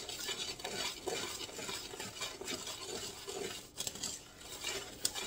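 Hand-stirring pudding mix into chocolate cake batter in a mixing bowl, the utensil scraping round the bowl with many small clinks against its side.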